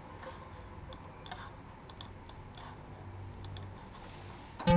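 Several scattered computer mouse clicks over a faint low hum as the DAW is worked, with a music note starting to play near the end.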